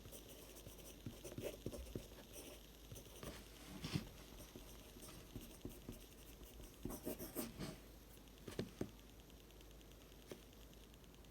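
Pencil writing on paper: faint, irregular scratching strokes with small taps, one louder tap about four seconds in and a busy run of strokes around seven seconds, thinning out near the end.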